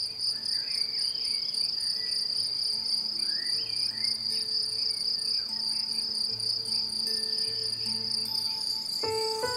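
A steady, high-pitched insect trill, pulsing rapidly and without a break, with a few faint bird chirps and soft held music notes beneath it. The music grows louder near the end.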